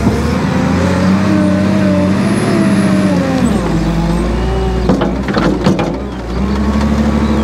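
Cat wheel loader's diesel engine labouring and revving up as the bucket is driven into a compost pile, then easing back down about halfway through. A few sharp knocks around five to six seconds in, then steady running.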